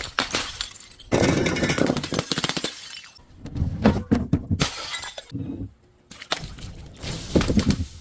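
Glass bottles shattering and crunching into shards, in several separate bouts of breaking with short pauses between them.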